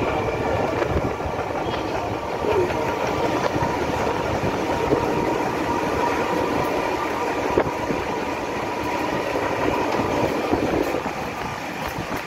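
Vintage narrow-gauge electric train running along the track, heard from an open carriage window: steady running noise with a whine, a few sharp clicks from the rails, easing slightly near the end.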